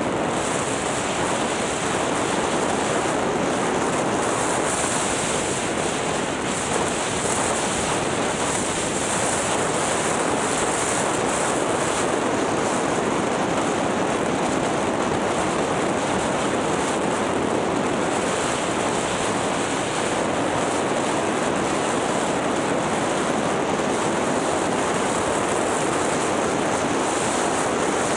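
Steady rushing of wind over the microphone, mixed with skis gliding over packed snow on a downhill run, with no breaks or changes.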